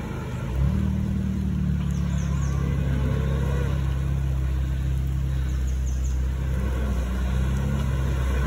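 Lada Niva engine running under throttle at steady revs. It picks up about half a second in and then holds an even pitch.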